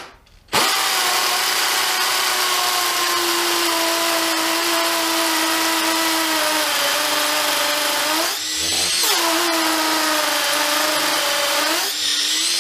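Makita DTP141Z cordless 4-mode impact driver drilling into brick. It starts about half a second in with a steady motor whine that slowly falls in pitch as it bears down, and eases off briefly twice, about eight seconds in and near the end. The bit is clogging with damp brick dust, which slows the drilling.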